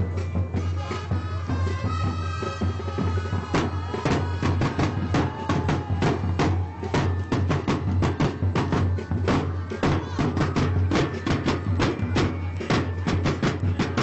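Band music: a melodic passage with held notes, then drums come in with rapid, rhythmic strokes about three and a half seconds in and keep going.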